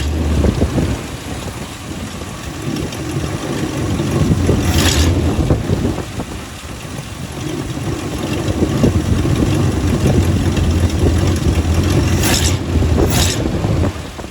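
AMC 287 V8 with a single muffler idling steadily, warmed up and running smoothly. Its loudness swells and fades slowly. Three brief rustles or knocks come about five seconds in and twice near the end.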